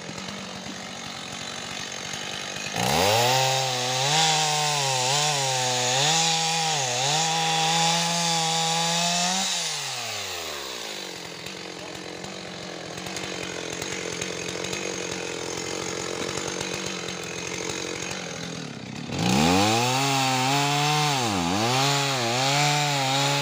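Two-stroke chainsaw revving up about three seconds in and cutting through logs, its pitch dipping again and again as the chain bogs down in the wood. It winds down about ten seconds in and stays low until it revs up and cuts again about nineteen seconds in.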